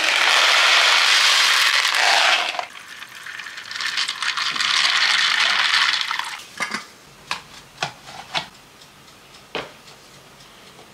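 Dried chickpeas poured from one plastic tub into another, a dense rattle for about two and a half seconds; then water poured from a kettle onto the chickpeas for about two and a half seconds, followed by a few light knocks on the wooden counter.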